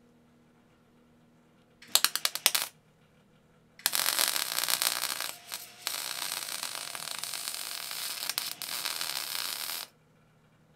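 Wire-feed welder arc welding a nut onto the steel frame: a quick series of short crackling arc strikes about two seconds in, then a steady crackling weld bead for about six seconds with a brief break near the middle, ending suddenly.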